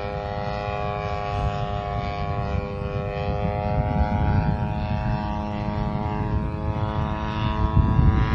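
RC model airplane's engine and propeller droning steadily in flight, its pitch wavering slightly, over a low rumble.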